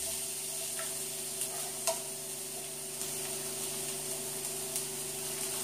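Chopped onions sizzling in hot olive oil in an electric skillet, a steady frying hiss with a couple of faint clicks as pieces drop in. The cook judges the heat probably a bit high.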